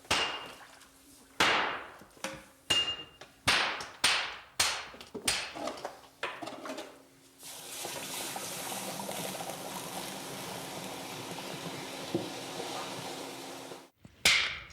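Hand hammers striking hot tamahagane steel on an anvil: about ten sharp, unevenly spaced blows, followed by a steady hiss lasting about six seconds.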